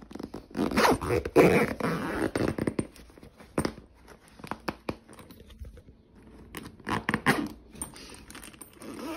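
Nylon tool backpack being handled: fabric rustling, a zipper and small knocks, loudest in the first few seconds with another burst of rustling near the end.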